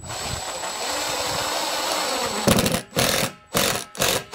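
Cordless drill running steadily for about two and a half seconds, driving a stainless screw into the wall of a plastic barrel, then a series of loud short bursts of noise.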